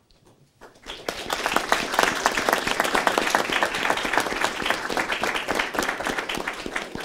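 Room full of people applauding, many hands clapping; it starts about a second in and dies away near the end.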